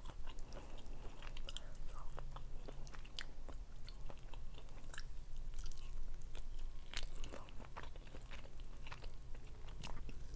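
Close-miked chewing and biting of rotisserie chicken eaten off the bone by hand, with many irregular mouth clicks.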